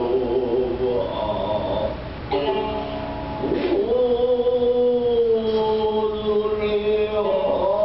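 Gidayū chanting for bunraku: a chanter's voice in drawn-out, wavering notes, sliding down about halfway and then holding one long note, over shamisen accompaniment.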